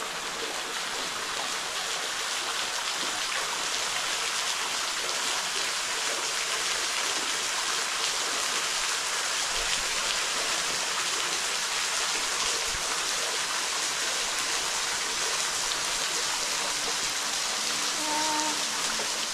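A small waterfall spills in thin strands off a rock ledge and splashes onto wet rock below, making a steady, even hiss of falling water.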